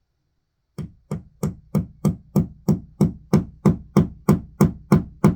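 Hammer striking a nail into the wall, a steady run of about fifteen even blows, roughly three a second, starting about a second in.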